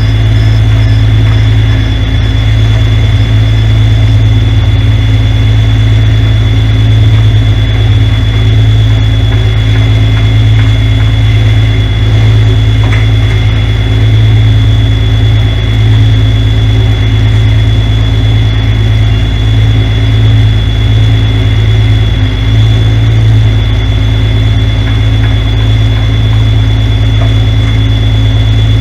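Semi truck's diesel engine idling steadily, a constant low rumble with a thin steady high tone above it.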